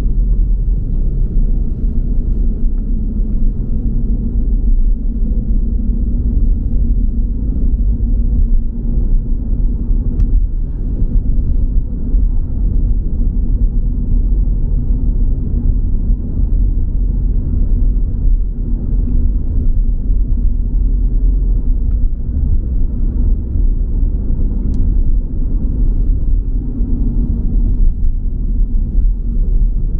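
A car driving along a road: a steady low rumble of tyre and engine noise.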